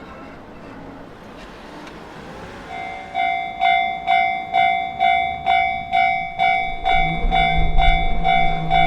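Japanese level-crossing warning bell starting up about three seconds in, its electronic ding repeating about twice a second as the crossing signal activates for an approaching train. A low rumble with a steady hum rises beneath it near the end.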